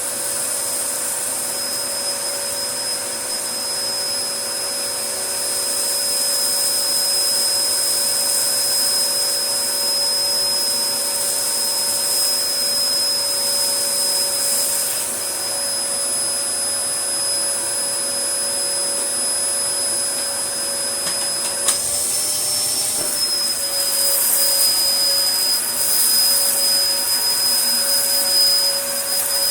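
1998 Dyson DC01 upright vacuum cleaner running continuously, a steady high motor whine over airflow noise, louder for running without its filters. About two-thirds of the way through there is a click and the whine briefly rises in pitch, and the airflow turns rougher and hissier near the end.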